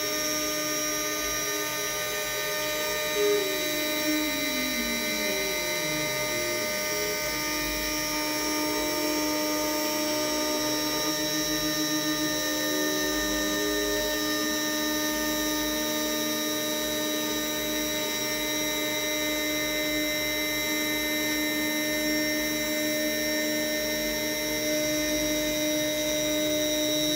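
CNC router carving birch plywood with a fine conical V-bit: the spindle gives a steady high whine, while a second tone rises and falls in pitch as the carving head moves across the sheet. There are two brief knocks about three and four seconds in.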